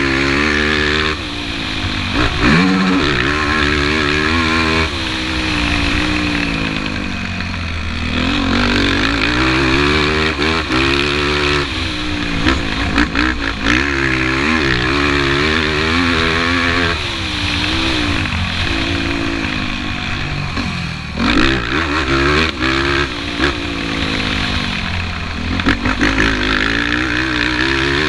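Yamaha YFZ450 race quad's single-cylinder four-stroke engine under hard throttle, revving up and backing off over and over as it shifts and brakes.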